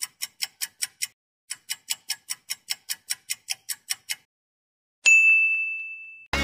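Fast clock-ticking sound effect, about five ticks a second, breaking off for about a second and then resuming. About five seconds in, a single loud bell-like ding rings out and fades, marking the phone alarm going off at 5:00.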